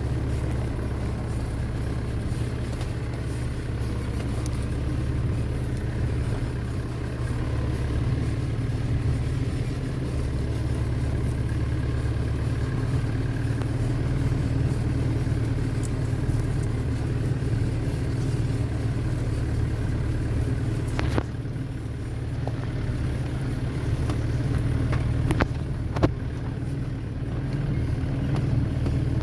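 Steady low rumble of a running engine, with a few sharp clicks in the last third.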